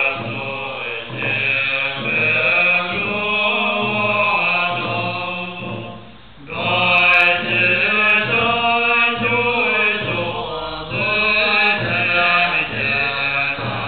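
Tibetan Buddhist monks chanting together in low, sustained voices. The chant drops to a brief lull about six seconds in, then resumes louder.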